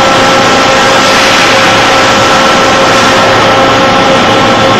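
Gray 550F CNC floor-type horizontal boring mill running, a loud steady mechanical drone with several steady whining tones over it and a low hum underneath.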